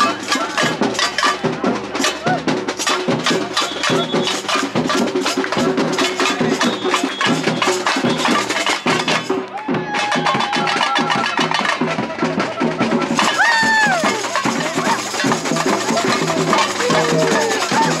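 Samba percussion ensemble playing a fast, dense rhythm of drums and wood-block-like strikes. The playing thins out for a moment about nine seconds in, then picks up again.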